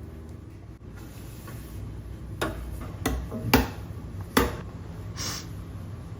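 Four sharp knocks and clatters of hard objects, like dishes or utensils on a hard surface, over a steady low hum, followed by a brief hiss.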